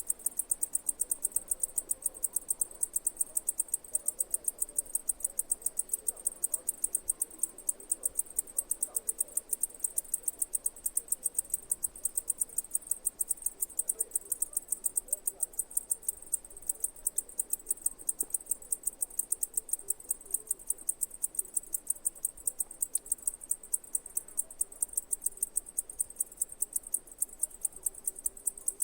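Cicadas singing: a high-pitched chirring made of rapid, evenly spaced pulses that keeps up without a break.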